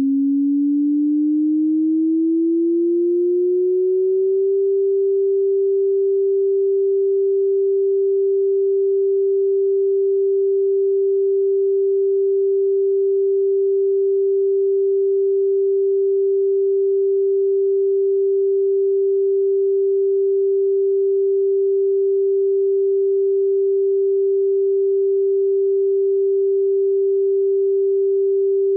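Synthesised siren tone imitating the standard tsunami all-clear signal. A single plain tone rises in pitch over the first four seconds or so, then holds one steady pitch. The long steady tone means the tsunami warning is lifted.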